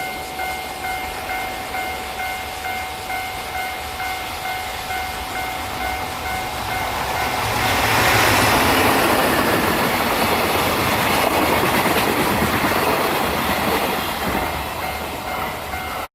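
A Japanese railway level-crossing alarm rings with an even repeating beat. About seven to eight seconds in, a train passes on the Tokaido Main Line, and its rumble and wheel noise swell over the alarm before easing off near the end.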